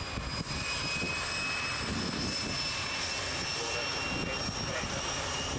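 Hawker Sea Hawk's Rolls-Royce Nene turbojet running on the ground with a high whine over a rumble, the whine rising slowly in pitch.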